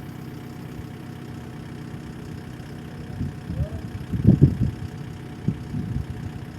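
An engine idling with a steady hum, with a few louder low surges about halfway through.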